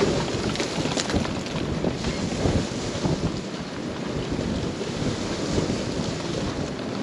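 Strong wind buffeting the microphone: a steady rushing noise with constant low rumbling gusts, over choppy water splashing at the ramp.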